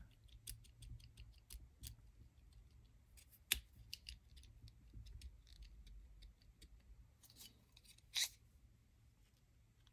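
Faint scattered clicks and taps of small tools and plastic parts as a bearing is rocked out of a Kyosho Mini-Z MR03 rear pod, with a sharper click about three and a half seconds in and a short louder scrape about eight seconds in.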